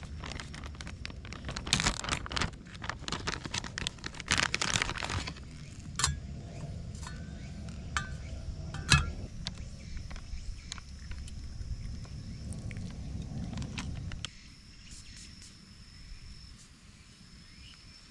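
A plastic zip bag rustling, then ice cubes dropping into a stainless steel mug with several sharp clinks.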